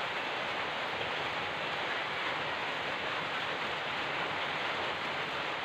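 Steady, even rushing hiss with no distinct events or changes in level.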